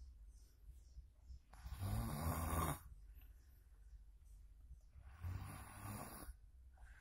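A sleeping child snoring: two low, rattling snores, each about a second long and some three and a half seconds apart, with quiet breathing between them.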